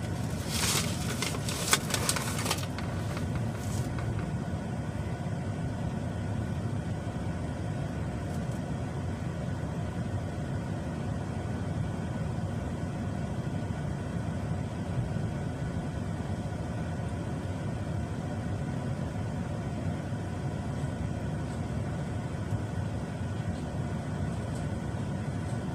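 Truck engine idling steadily, with a few sharp clatters in the first few seconds.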